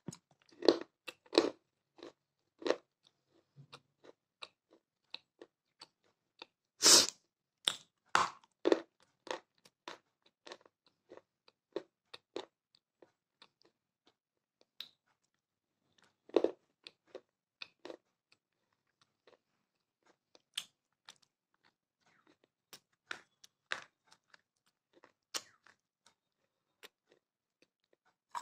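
Close-up biting and chewing of broken pieces of fired terracotta clay cup, as irregular sharp crunches. They come thick in the first couple of seconds and again around seven to nine seconds in, where the loudest crunch falls. A strong crunch comes about sixteen seconds in, then smaller, sparser crunches follow.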